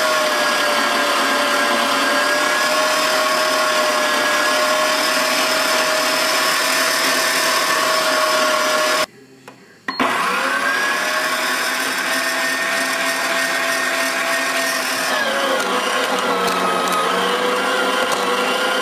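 TS110 electric meat grinder running a steady motor whine as it grinds raw meat and chicken for dog food. The sound cuts out for about a second halfway through, then returns, and its pitch dips for a couple of seconds near the end.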